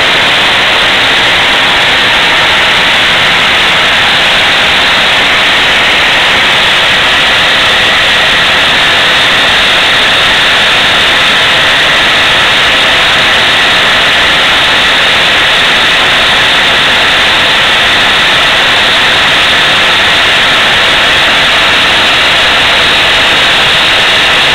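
A group of Mamod toy steam engines running together under steam: a loud, steady hiss with no separate beats standing out.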